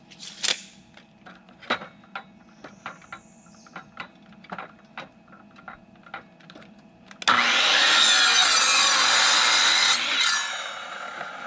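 Miter saw cutting through a wooden board: a loud burst starting abruptly about seven seconds in, lasting about three seconds, then winding down. Before it there are a few light knocks and clicks.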